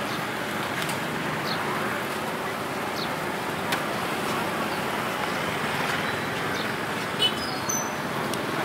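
Busy street-market ambience: a steady hubbub of background voices mixed with road traffic, with a few light clicks and one brief sharp high-pitched sound near the end.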